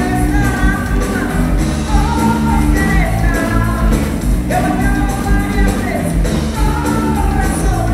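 Latin funk-rock band playing, with singing over electric bass and a steady drum beat.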